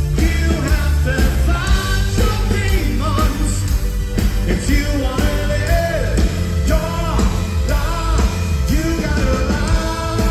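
Live rock band playing: a male lead singer over electric guitars, bass guitar, drums and a string section of violins and cello.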